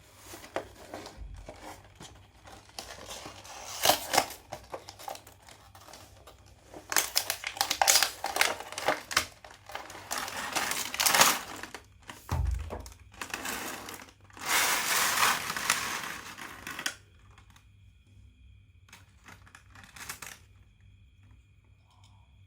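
Packaging of a 1:64 diecast model car being handled and opened by hand: irregular crinkling and tearing in spells, loudest in the middle and again just past the halfway mark, with one low thud about halfway through. After about seventeen seconds it drops to faint, occasional handling.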